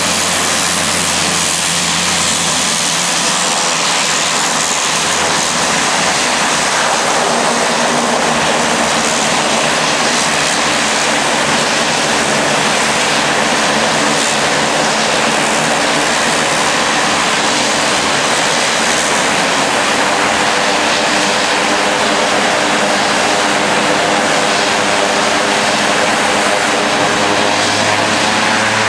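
Twin turboprop engines of a Dornier 228 running steadily and loudly, propellers turning, as the plane turns on the runway and holds at the threshold before its take-off roll.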